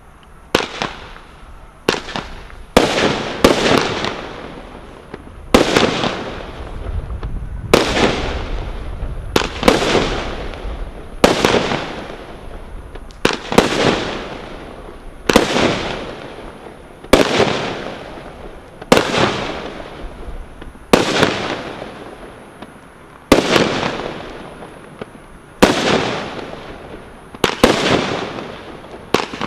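Brothers Pyrotechnics 'Glittering Heights' 25-shot combination roman candle cake firing. It gives a sharp report about every one to two seconds, often two close together, and each one dies away over a second or so.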